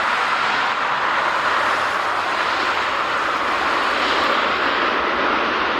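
Airbus A319-112 jet airliner's CFM56 turbofan engines: a loud, steady rushing noise that holds level throughout.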